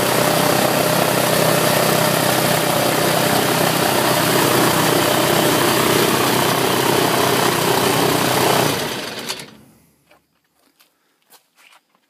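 Mini-airboat's Continental 4A084 four-cylinder aircraft engine running steadily and loudly with its propeller, then shut off about nine seconds in and dying away within a second or so. A few faint clicks and knocks follow.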